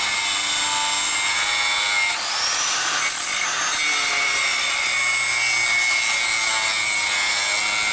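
Angle grinder cutting into steel at a pickup's front bumper: a steady high whine over a harsh grinding rasp. About two seconds in the whine dips under load and then climbs back to speed.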